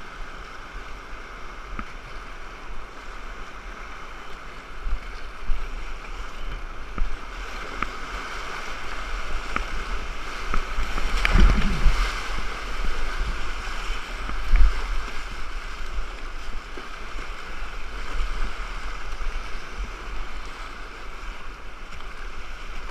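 Whitewater rapid rushing steadily around a kayak, with paddle strokes and splashes; the loudest surge comes about eleven seconds in as a wave breaks over the bow, with a sharp splash a few seconds later.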